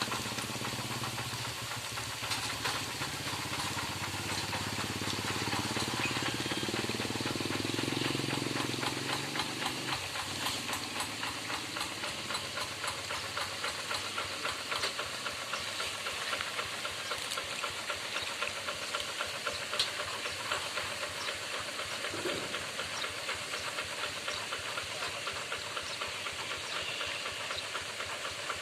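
Walk-behind paddy tractor's diesel engine running with a rapid, even chugging and a steady hiss. A deeper hum underneath drops away about ten seconds in.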